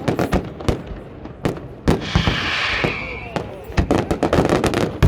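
Fireworks display: a rapid run of sharp firework bangs, with a hissing, crackling shell for about a second starting two seconds in.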